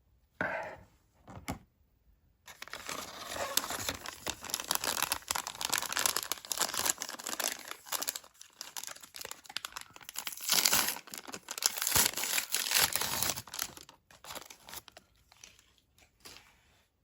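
Doll packaging being opened by hand, crinkling and tearing. A few brief rustles come first, then about two and a half seconds in a long stretch of continuous crinkling and tearing begins, which breaks into scattered short rustles near the end.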